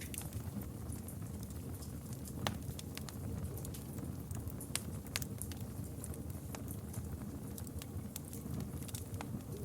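Wood campfire crackling: scattered sharp pops and snaps over a steady low rush of flame, with one louder pop about two and a half seconds in.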